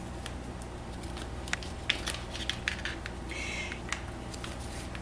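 Swede-O Ankle Lok lace-up ankle brace being laced at the top eyelets: small clicks and rustles as the laces are drawn through and tightened, with a short swish about three and a half seconds in. A steady low hum runs underneath.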